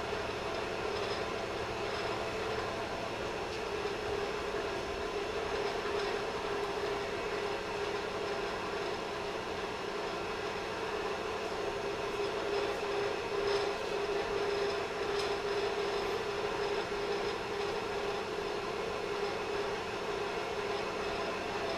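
Blacksmith's forge running steadily: a constant rushing noise with a steady hum underneath.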